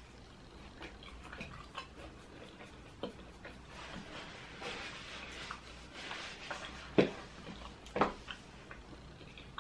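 Close-up mouth sounds of chewing a Hot Cheeto-coated fried pickle with ranch: soft, wet chewing with scattered small clicks, and two sharper smacks about seven and eight seconds in. The oven-baked coating has not got the crunch she wanted.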